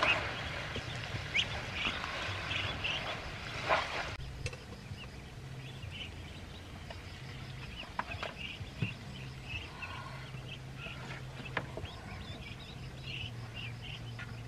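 Ducklings peeping in many short, repeated high chirps, with a few sharp clinks of a metal ladle against a wok.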